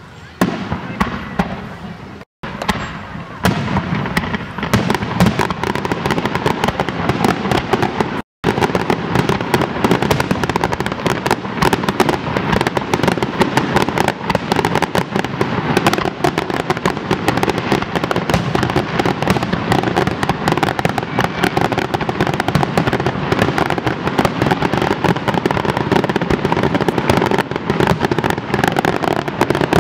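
Aerial fireworks shells bursting in a rapid barrage of bangs, sparse for the first few seconds and then thickening into a dense, nearly continuous run of overlapping reports.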